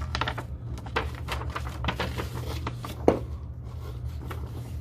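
Paper rustling and crinkling as a folded quick start guide is handled and opened out, with one sharp knock about three seconds in. A steady low hum runs underneath.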